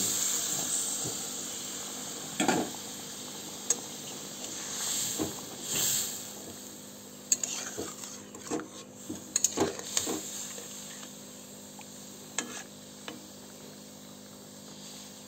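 Fish curry sizzling in a metal karahi just after a little water has gone into the hot masala, the sizzle fading over the first few seconds. A metal spatula stirs the curry, clicking and scraping against the pan now and then.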